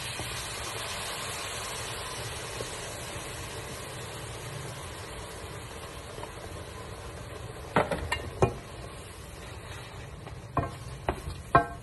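Salmon in a cream sauce sizzling steadily in a frying pan, then a few sharp knocks of a wooden spatula against the pan as it is stirred, from about eight seconds in.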